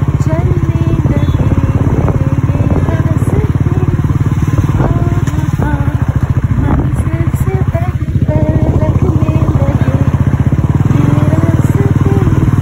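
Royal Enfield Bullet 350's single-cylinder engine running steadily under way, a fast even beat heard from the rider's seat, easing briefly about two-thirds of the way through.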